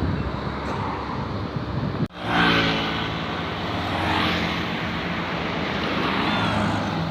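Roadside traffic noise from a large bus, its engine running with a steady low hum and a whoosh as it passes. The sound cuts out abruptly for a moment about two seconds in, where the footage is cut.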